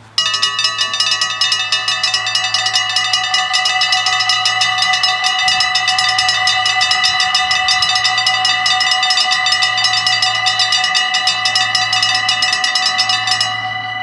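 Dutch level-crossing warning bells start ringing suddenly: a rapid, continuous electric clanging with several pitches at once, the signal that the crossing is closing for an approaching train. Near the end, as the barriers come fully down, the ringing gets quieter and its brightest part stops.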